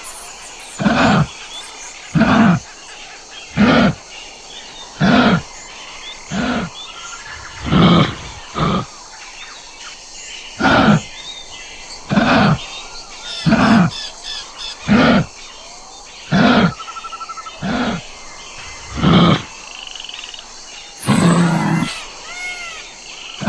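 Kangaroo giving a long series of short, low calls, about one every one and a half seconds. Birds chirp faintly in the background between the calls.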